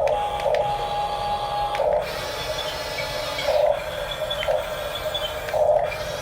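Huina 1569 RC bulldozer's small electric motors and gearboxes running with a steady whine that steps down in pitch about two seconds in, broken by several short bursts of grinding.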